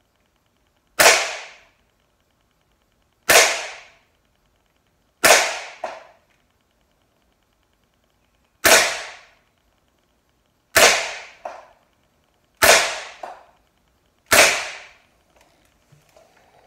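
Gamo PT-85 CO2 blowback pellet pistol firing seven single shots, each a sharp crack with a short echo, spaced about two seconds apart with one longer gap. After several of the shots a fainter knock follows about half a second later, and a few light clicks come near the end.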